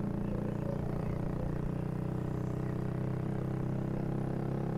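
Vespa scooter engine running steadily while riding along, a steady low drone with no change in revs.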